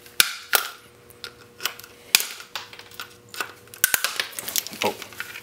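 Cutting pliers snipping at a plastic connector in an IP phone: a string of sharp clicks and snaps at uneven spacing, the loudest about a quarter second in and just after two seconds.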